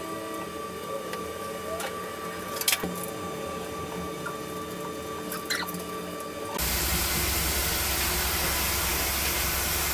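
Scattered light taps and clicks of air-conditioner installation work over a faint steady hum. About six and a half seconds in, a louder steady rushing noise with a low hum takes over.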